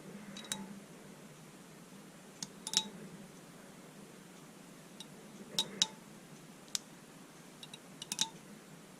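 Light metallic clicks and clinks from small parts of a ratchet screwdriver being handled, in a few scattered clusters of one to three sharp taps, each ringing briefly.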